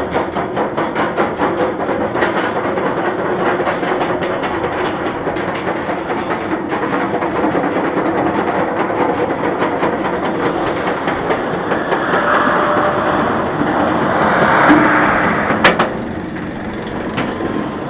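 Chain lift of a Bolliger & Mabillard steel roller coaster hauling the train up the lift hill: a steady clatter with rapid, regular clicking. Near the end there is one sharp click and the clatter eases as the train crests the top.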